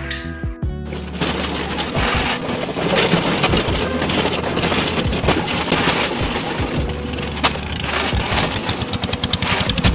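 Rotating log debarking machine running: dense, rapid clattering and cracking as its spiked rollers strip bark from a turning log, over background music with a steady bass line.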